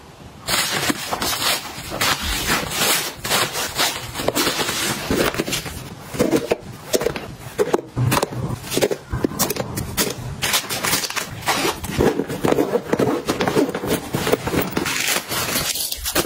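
Close-up handling of toiletries and fabric packing pouches: rustling and scraping with many small clicks and taps as items are put into a toiletry bag and a hanging cosmetics organizer is unfolded.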